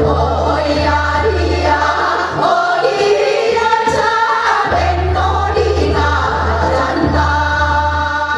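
A group of women's and girls' voices singing a Korean folk song (minyo) together through microphones, over a backing accompaniment with a deep, steady bass that drops out for a couple of seconds in the middle.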